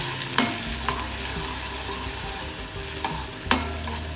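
Finely chopped onion sizzling in hot groundnut oil in a stainless steel kadhai while a steel spoon stirs it, scraping and clinking against the pan. The sharpest knock of spoon on steel comes about three and a half seconds in.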